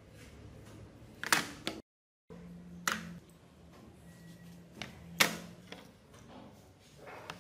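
Rusty iron lock parts are set down with metal tweezers on a clear plastic lid, giving a few separate sharp clacks of metal on plastic, spaced a second or more apart. A faint steady hum runs underneath.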